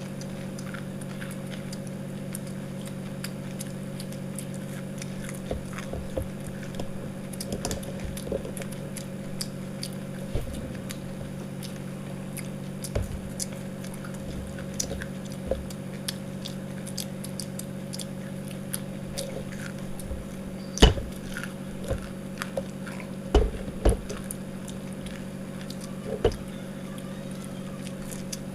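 People eating breadcrumb-coated fried chicken pakoda: chewing and biting with scattered short crunchy clicks, and a few louder knocks about two-thirds of the way in. A steady low hum runs underneath.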